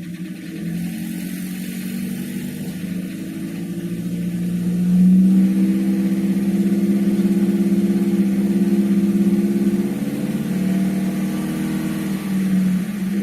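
Nissan QG18DE four-cylinder petrol engine raised from idle and held at about 2000 rpm, then easing back near the end. At these revs the knock under investigation is practically inaudible.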